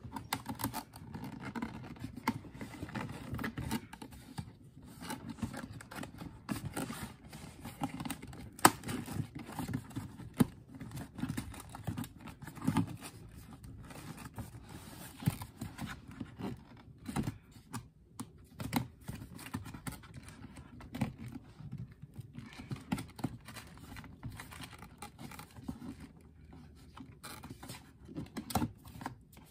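Fingers scratching, picking and tapping at a cardboard Air Jordan 35 shoebox while trying to pry it open, with bits of cardboard tearing: a dense, irregular patter of small scratches and clicks, sped up in fast-forward.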